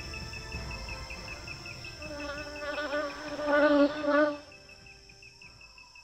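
Crickets chirping in a steady rhythm of about four or five chirps a second, over a thin high insect drone. About two seconds in, a wavering pitched sound swells over them and cuts off sharply near four and a half seconds. The chirping carries on more faintly after that.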